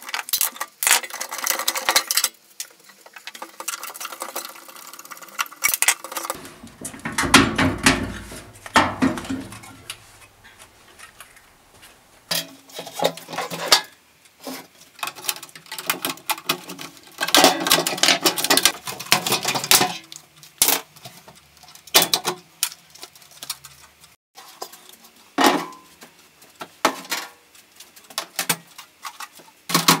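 A microwave oven being taken apart by hand: a screwdriver turning out screws, and plastic and sheet-metal parts clicking, rattling and clattering as they are worked loose and handled. A heavier run of knocks and scraping comes about seven seconds in.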